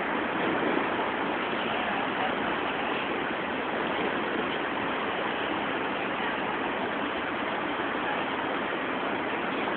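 Steady, even din of a busy city street crowd and traffic blended together, with no single sound standing out.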